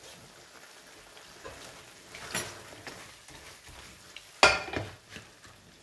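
Silicone spatula stirring and scraping thick bolognese sauce in a frying pan, with a faint sizzle from the hot sauce. A short louder noise comes about halfway through, and a louder sudden one near the end.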